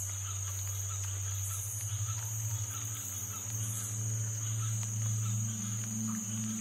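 Ambient relaxation soundtrack: a steady, high cricket-like chirring with faint small chirps, over a low sustained drone that swells about halfway through.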